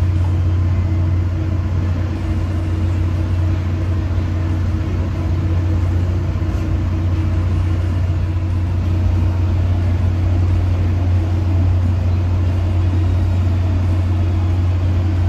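Tri-Rail commuter train running, heard from inside a passenger coach: a steady low hum over even rumbling road noise.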